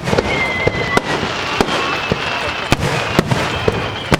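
Fireworks display going off in a rapid, irregular run of sharp bangs and crackles, about a dozen reports in four seconds, with a thin high whistle drifting slightly down in pitch.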